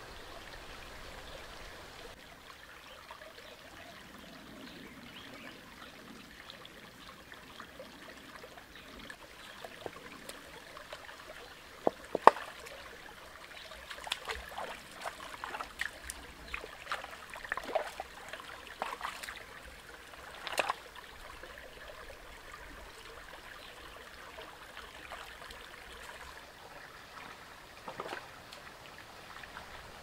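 Steady trickle of running water, with a run of sharp clicks and knocks in the middle, the loudest a quick pair about twelve seconds in.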